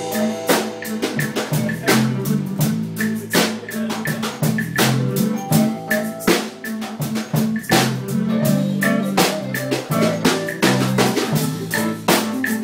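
Live band jamming: a drum kit keeps a steady beat with snare, bass drum and cymbals under sustained guitar chords.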